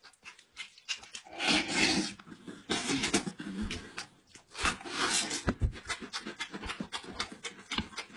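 Close-miked eating sounds: wet chewing, smacking and slurping of sauce-coated goat head meat, with heavy breaths. Sticky clicks come irregularly throughout as greasy fingers pull the meat apart.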